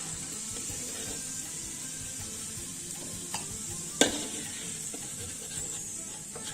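Hot oil sizzling steadily in a wok of frying potato slices, with a sharp clink of a utensil against the pan about four seconds in.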